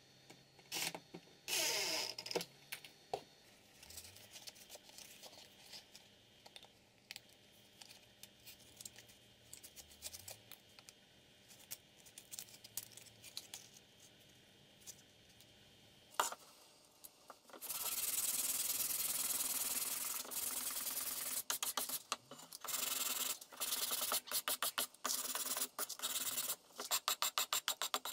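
A homemade sanding block, a wooden bar with binder clips, rubbed along the edge of a wooden board. It makes a long scratchy hiss, then quick back-and-forth strokes of about three to four a second near the end. Near the start, a cordless screwdriver drives a screw briefly, followed by small handling clicks.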